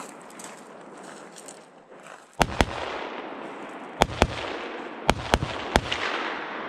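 Semi-automatic AR-style rifle fired seven times, mostly in quick pairs: two shots about two and a half seconds in, two more at four seconds, two around five seconds and a last one shortly after. Each shot is followed by a rolling echo.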